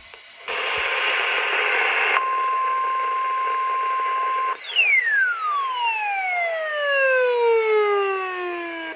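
NOAA Weather Radio warning alarm test. Just over a second of harsh, noisy hiss comes first, then the steady 1050 Hz warning alarm tone for a little over two seconds. Past the middle the tone gives way to a falling sweep with overtones that glides steadily down in pitch.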